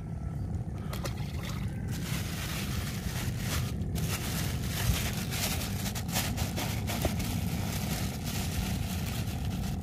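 Plastic bags crinkling and rustling close by as hands work a bran groundbait mix inside them, with short crackles throughout, over a steady low rumble. The rustling stops suddenly at the end.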